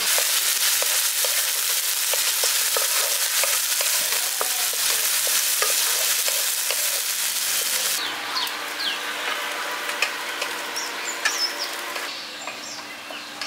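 Chopped onion sizzling in hot mustard oil in a non-stick kadai, stirred and scraped with a wooden spatula. About eight seconds in, the sizzle drops to a softer hiss and birds chirp over it.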